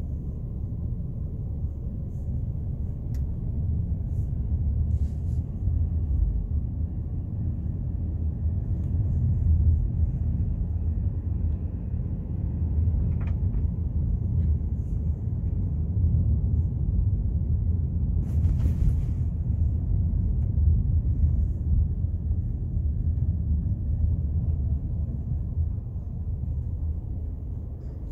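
Low, steady rumble that swells and eases unevenly, with a brief hiss about eighteen seconds in.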